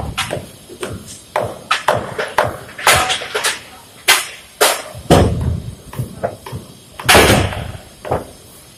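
Irregular metal knocks and clanks, several a second, with two heavier thuds about five and seven seconds in, from workers handling a crane-hung bin and its lifting chains.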